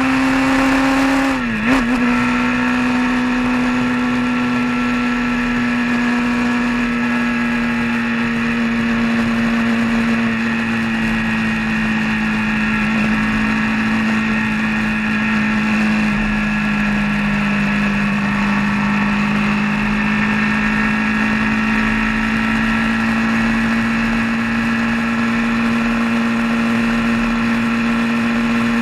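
Vehicle engine running steadily at road speed with a constant drone. About a second and a half in, the pitch dips sharply and recovers; later it sags slightly and rises again.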